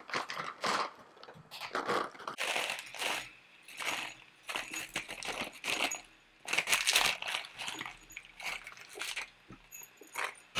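Foil hop bag crinkling and rustling in irregular bursts as it is handled, with hop pellets poured between the bag and a glass on a kitchen scale, rattling against the glass.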